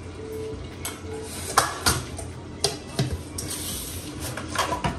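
Metal spoon and steel spice box clinking against an aluminium cooking pot while spices are added to frying mutton: a scatter of short, light metallic knocks, the sharpest about a second and a half in.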